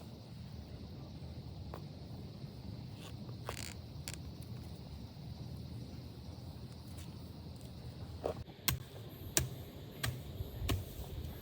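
Low steady outdoor background rumble, then from about eight seconds in a run of five sharp knocks or snaps, roughly two-thirds of a second apart.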